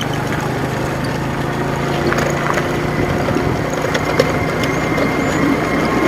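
A vehicle engine running steadily, with a continuous low hum and rattle.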